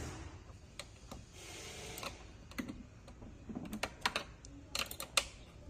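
2.5 mm hex key working the motor's mounting screws as they are loosened: scattered light clicks and taps, with a short scraping rasp about one and a half seconds in and a quick cluster of clicks near the end.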